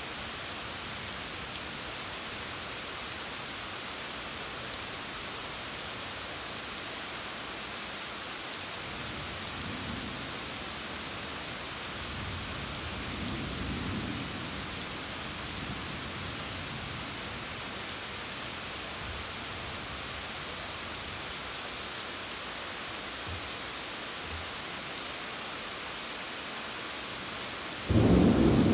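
Steady rain hissing, with thunder rumbling softly twice in the middle and a loud clap of thunder breaking out suddenly near the end.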